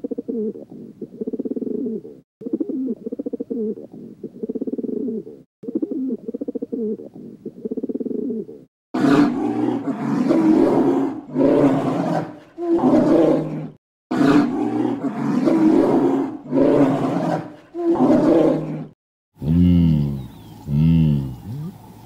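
Farm animals calling over and over, roughly one call a second, in cut-together clips: lower calls at first, louder and harsher ones from about nine seconds in, and deeper calls that rise and fall near the end.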